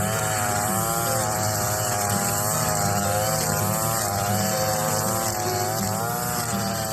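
Gas string trimmer's small two-stroke engine running continuously, its pitch wavering up and down as the throttle is worked.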